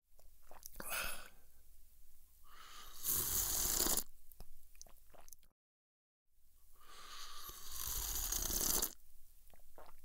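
A person sipping coffee with noisy slurps. There are two long slurping sips, about three and seven seconds in, with shorter sips and small gulping clicks around them.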